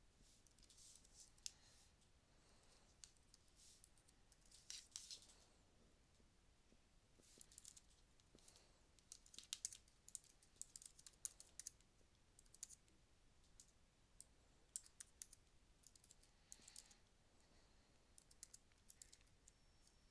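Computer keyboard typing, faint, in scattered short runs of keystrokes.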